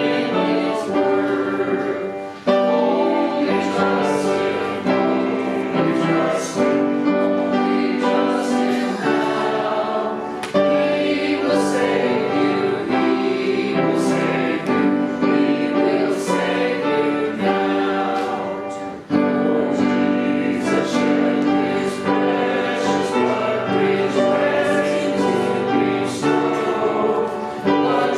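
Church congregation singing a hymn together, in long held phrases with a brief break between lines about every eight seconds.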